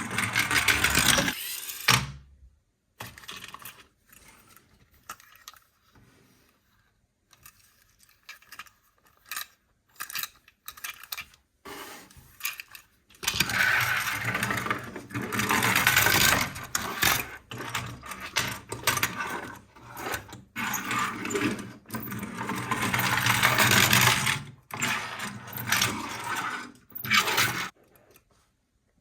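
Plastic toys and packaging handled, in irregular bursts of rustling and clattering with scattered clicks and short quiet gaps between.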